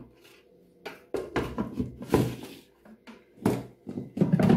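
A food processor's clear bowl and lid being handled and fitted onto the motor base: a string of short knocks and clicks with a brief scrape, loudest near the end.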